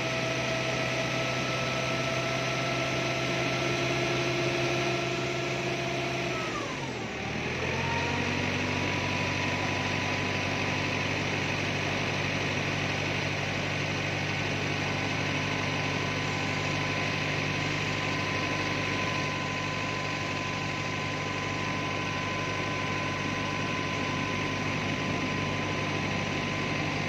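Heavy truck engine running steadily. About seven seconds in its pitch glides down, then holds steady at the lower pitch.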